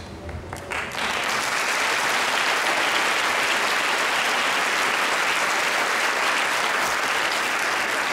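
Audience applauding, picking up sharply about a second in and then holding steady.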